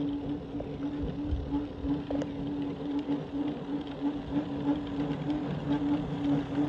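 Battery-operated athletic field-marking robot driving and spraying a paint line: a steady mid-pitched hum from its drive motors and paint pump, lightly pulsing, over an uneven low rumble.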